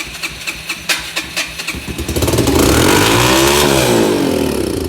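Yamaha TTR-125's four-stroke single cranked on its electric starter, catching about two seconds in on starting fluid sprayed into the intake. It revs up high and falls away again near the end, which the owner takes for a stuck throttle. Firing on starting fluid points to a fuel or gummed-up carburetor problem.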